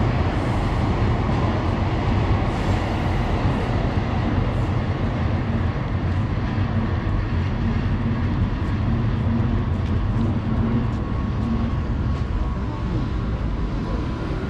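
Train running on the elevated brick railway viaduct close overhead: a steady low rumble, with a thin high whine joining about halfway through and the rumble easing slightly near the end.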